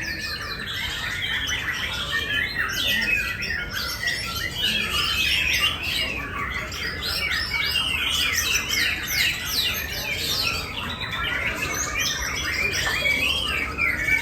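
Several caged songbirds singing at once in competition: a dense, continuous tangle of quick overlapping chirps and trills.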